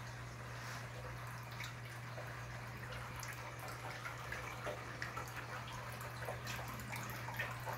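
Water trickling and splashing from an overflow pipe into a partly filled glass aquarium tank, a steady hiss with small drips and splashes, as a gravity-fed sump system begins to flow. A steady low hum runs underneath.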